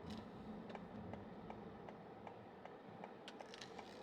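Faint, even ticking, about two and a half ticks a second, over a low steady background hum.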